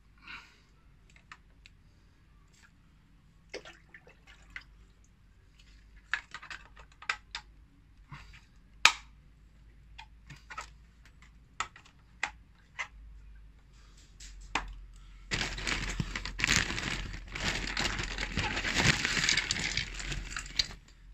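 Wet aquarium filter cartridges being handled, with water dripping off them and scattered light clicks and knocks as they are squeezed and set down on tile. About 15 seconds in, a loud rushing noise like running or splashing water starts abruptly and lasts about six seconds.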